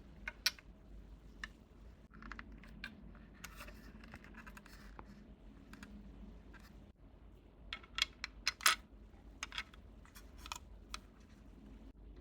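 Hands unpacking small items: scattered clicks and taps with some rustling, and a quick cluster of sharper clicks about eight seconds in.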